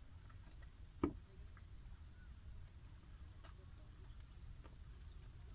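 Faint low shoreline rumble, with one sharp click about a second in and a few fainter ticks.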